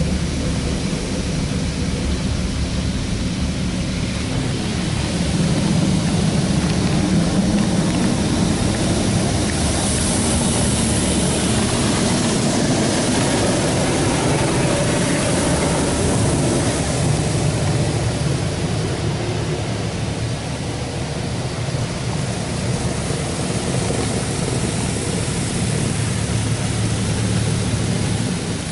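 High-pressure water jets from a Belanger Kondor KL1 touchless car wash blast the car's body and glass during the high-pressure wash cycle. Heard from inside the cabin, it is a steady, loud rush of water over a low rumble, and it fades out at the end.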